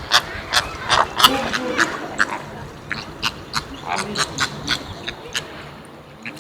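A flock of flamingos calling: many short honking calls overlapping, thickest in the first couple of seconds and more spread out after.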